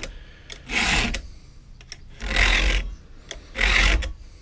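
A round chainsaw file rasping through a cutter tooth of a Stihl saw chain: three strokes, each about half a second, roughly a second and a half apart, as the dulled chain is hand-sharpened.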